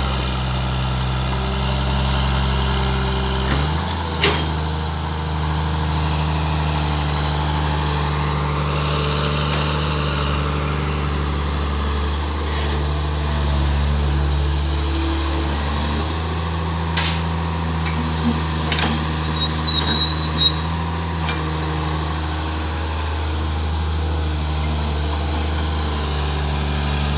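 Diesel engines of a Komatsu crawler excavator and a heavy dump truck running steadily, the engine note shifting about four seconds in and again about sixteen seconds in. A sharp clank about four seconds in and a cluster of short knocks a few seconds later.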